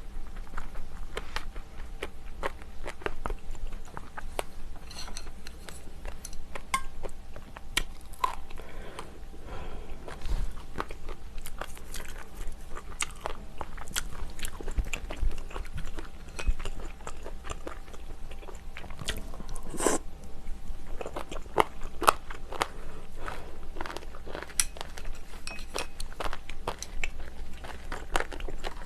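A person eating close to the microphone: chewing and biting, with many small crunches and clicks throughout.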